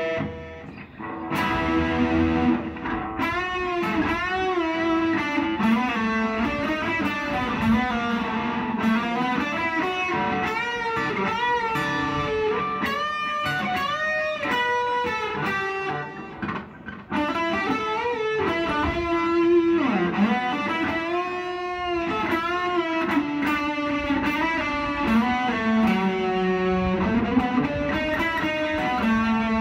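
Red SG-style electric guitar played solo, a freshly finished guitar being tried out: a lead line full of string bends and vibrato, with two short pauses, about half a second in and around the middle.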